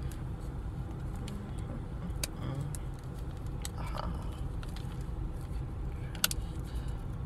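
Fingers picking at a candy package wrapper: scattered faint clicks and crackles, heard over a steady low rumble inside a car.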